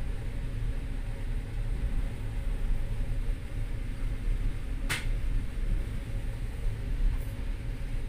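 Passenger train running, heard from inside the carriage: a steady low rumble with a faint steady hum, and one short sharp click about five seconds in.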